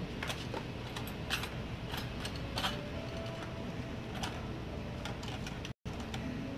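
Light scattered clicks and rattles of plastic-packaged plumbing parts being handled on metal pegboard hooks, over a steady low background hum of a large store.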